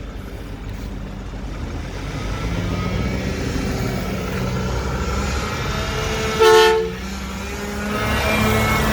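Mack McNeilus front-loader garbage truck's diesel engine running and building in level as the truck pulls away, rising in pitch near the end. A horn toots once, briefly and loudly, about six and a half seconds in.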